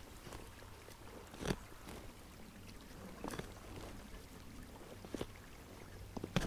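Long-handled spade cutting into grass turf and soil: four dull chops, about one every two seconds, the loudest near the end.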